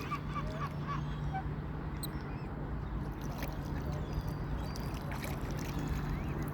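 Waterfowl calling at a pond: a quick run of short calls in the first second, then scattered brief chirps, over a steady low hum.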